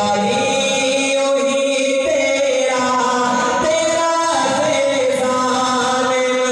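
A man singing a naat, a devotional Urdu poem in praise of the Prophet, in long held notes that slide and waver between pitches.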